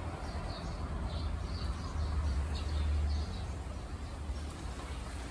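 Short high-pitched chirps, repeating roughly twice a second, over a steady low rumble that swells about halfway through.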